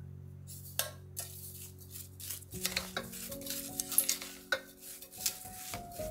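Wooden spoon stirring sugar into diced fruit in an enamel pot, with repeated clicks and scrapes of the spoon against the pot's sides. Soft background music with held notes plays underneath.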